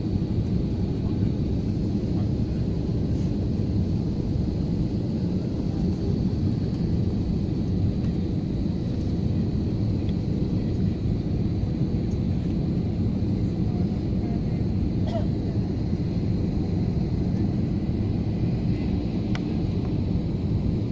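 Steady jet engine and airflow rumble heard inside the cabin of an Airbus A320-family airliner descending on approach, with a faint steady high-pitched whine on top.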